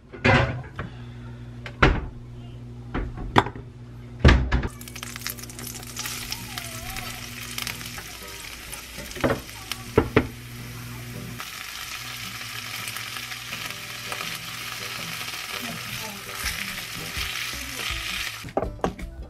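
Chopped garlic and green beans frying in butter in a nonstick frying pan, stirred with a silicone spatula. A few knocks on the pan come first; steady sizzling starts about five seconds in and dies away near the end.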